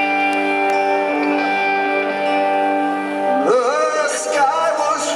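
Live rock concert music, heard from the audience in an arena: a sustained keyboard chord holds steady. About three and a half seconds in, a male lead voice comes in singing over it, sliding up into its first note.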